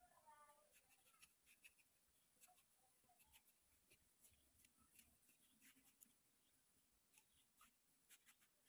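Very faint, irregular scraping and tapping of a steel trowel working wet cement mortar, a string of short strokes.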